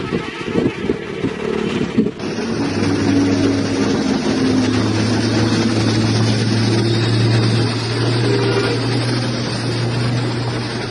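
Heavy vehicle engine running steadily with a low, even hum. It takes over after an abrupt change about two seconds in.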